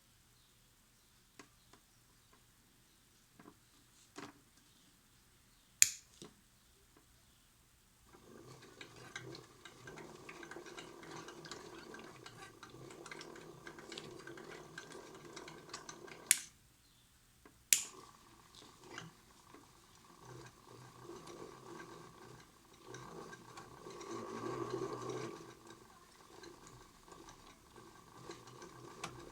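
Toy Miele washing machine's small motor turning the drum with water sloshing inside, a steady hum. It starts about a third of the way in after a few sharp clicks, stops briefly with a click near the middle, then starts again with another click and grows louder for a moment near the end.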